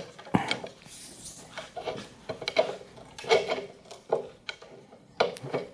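Intermittent metal clinks, knocks and scraping as a leg's bolt and washer are worked by hand into a T-slot on a sliding table, a tight fit.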